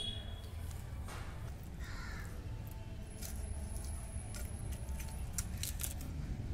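Bata fish being scaled and cut on a bonti, the upright floor-mounted blade: scattered short scraping clicks of fish against the blade over a steady low background rumble. A crow caws faintly about two seconds in.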